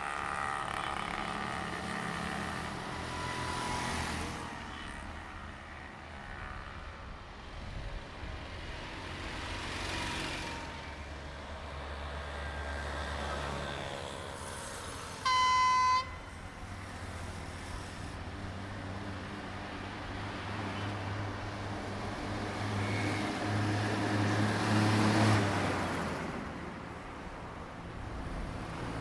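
Diesel train running past the trackside, its engine drone swelling to a peak a few seconds before the end. A short, high horn blast sounds about halfway through.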